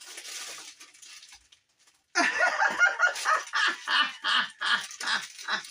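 A man laughing heartily in a long run of quick bursts, about three a second, starting about two seconds in. Before it comes a second or so of soft rustling as something is pulled from a box.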